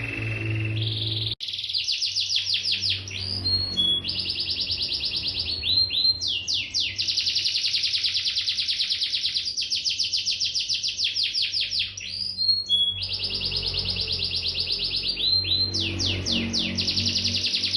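Domestic canary singing loudly: long rolls of rapidly repeated notes, one phrase after another with only short breaks, and a sudden break about a second in.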